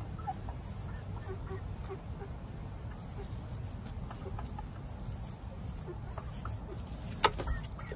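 Backyard hens clucking softly in short, scattered low notes over a steady low rumble. A single sharp click sounds about seven seconds in.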